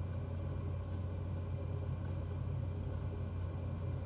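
A steady low hum of background noise, unchanging throughout, with no distinct events.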